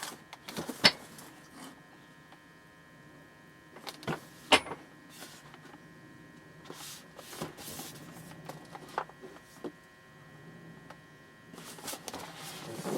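Handling of the boxed jump starter: scattered clicks, taps and rustles of the packaging being turned in the hands, over a faint steady electrical hum.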